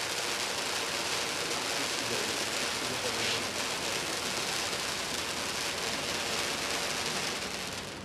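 Smokeless stage waterfall firework (35-second, 6-metre) burning: a steady hiss of falling sparks, dropping a little near the end as it burns out.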